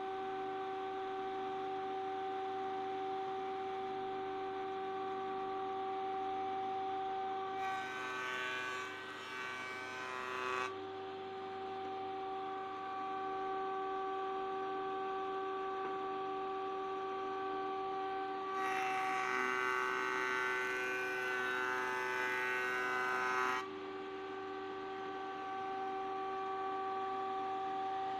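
Belmash SDMR-2500MAX combination woodworking machine running at speed with a steady whine, on its first start. Twice it turns louder and rougher, for about three seconds from about eight seconds in and for about five seconds from about nineteen seconds in, as the board offcut is fed through the cutter.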